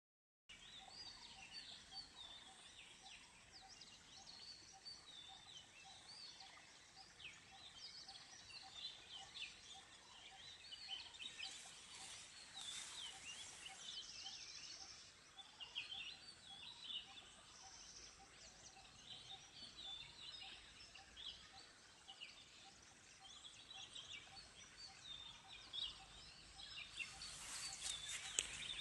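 Faint chorus of wild birds: many short chirps and twitters, with a low note repeated at an even pace underneath and two brief louder rushing noises.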